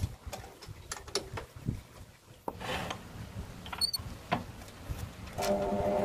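Wood lathe being set up: scattered small metal clicks and knocks as the chuck and tailstock are tightened on the workpiece. Near the end the lathe motor starts and runs steadily.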